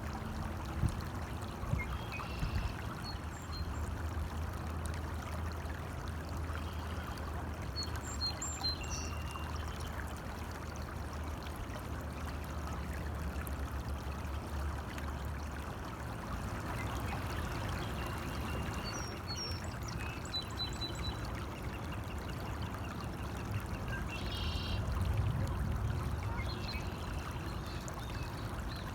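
A small stream running and trickling steadily, with a few short bird calls now and then. A low rumble underneath stops about halfway through.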